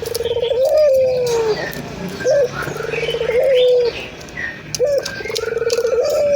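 Puter dove cooing, about three calls in a row. Each is a short rising note, then a rapid rolling trill, then a long note that slides down in pitch.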